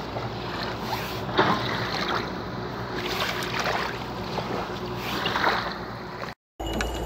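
Small river waves lapping and washing against a wooden beam and stones at the water's edge, in soft swishes every second or so over a low steady hum. The sound drops out suddenly for a moment about six seconds in.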